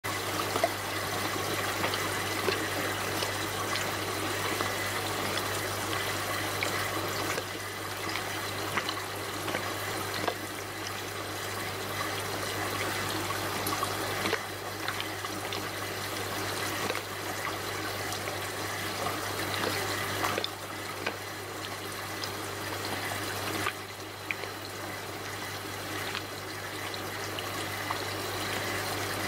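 Aquarium water bubbling and trickling steadily around the pleco eggs, with small ticks and a steady low hum underneath.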